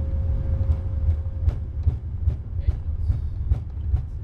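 Airbus A340-300 rolling out on the runway after touchdown, heard from the flight deck as a deep rumble. From about a second and a half in, even thumps come about two or three times a second as the nose gear runs over the runway. A thin steady hum cuts off just as the thumps begin.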